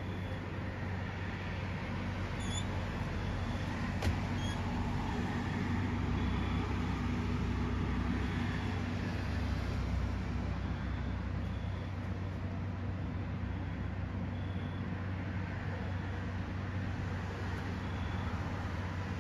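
Steady low rumble of outdoor background noise with a constant low hum, and faint short high chirps every second or two.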